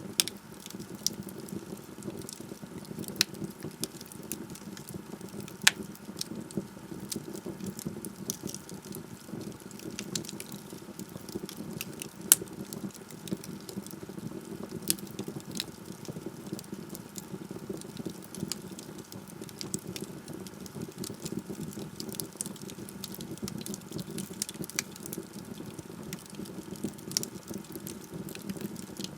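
Wood fire burning in a fireplace: a steady low rumble of flames with irregular crackles and sharp pops from the burning logs. The loudest pops come at about six and about twelve seconds in.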